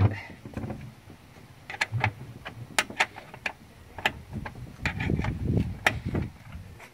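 Irregular sharp metallic clicks and clinks of a wrench and bolt as the last bolt of a minivan sliding door's center roller mechanism is undone and the mechanism is worked loose, with low bumps of the door being handled a little past the middle.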